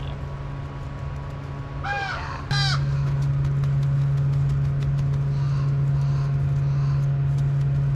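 Crows cawing twice, about two seconds in. Then a loud, steady low hum starts abruptly and runs on, with faint scattered clicks over it.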